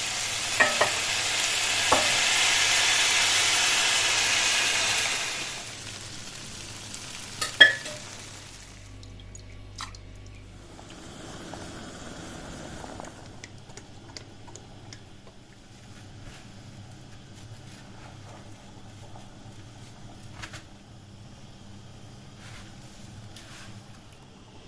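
Kadayıf pastry sizzling loudly in the pan for about five seconds, then dying down. A sharp clink comes a couple of seconds later, followed by quieter scraping and light clicks of stirring.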